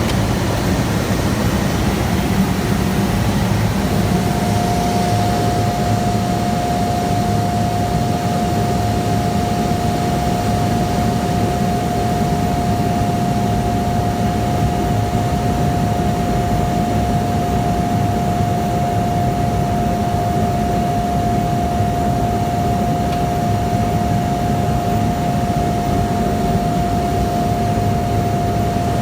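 Cessna Caravan's Pratt & Whitney PT6A turboprop engine and propeller running steadily, with a steady whine that comes in about four seconds in and holds.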